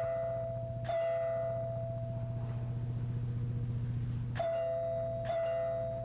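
Two-tone doorbell chime, ding-dong, rung twice: once at the start and again about four and a half seconds in, each note ringing on over a steady low hum.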